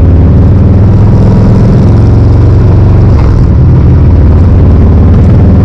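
Exhaust of a Harley-Davidson Road Glide Special's Milwaukee-Eight V-twin through Magnaflow Hitman slip-on mufflers, loud and deep, as the bike rides on the road. There is a brief dip in level about halfway through.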